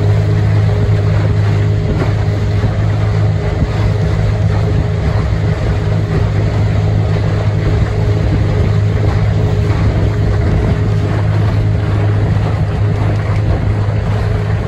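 Outboard motor of a small motorboat running at a steady cruising speed, giving a constant low hum, with wind and water rushing over the microphone.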